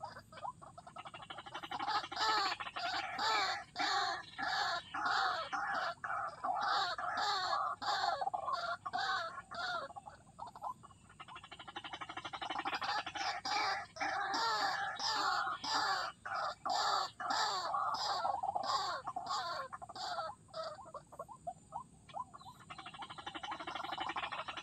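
White-breasted waterhen (ruak-ruak) calling in a long run of quickly repeated croaking notes, easing off briefly twice.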